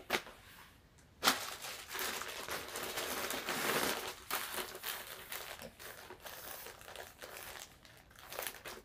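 Plastic packaging bags crinkling and rustling as they are handled and opened. It starts sharply about a second in, is densest for a few seconds, then thins to scattered crinkles.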